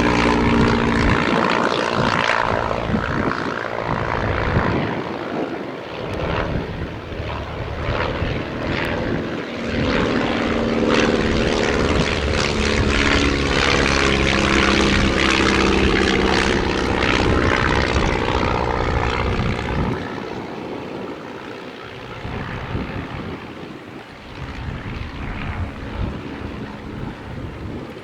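Propeller engines of vintage training biplanes (inverted four-cylinder inline) droning as the aircraft fly past, the pitch shifting up and down with their passes, over gusty wind rumble. The sound is fainter from about two-thirds of the way through.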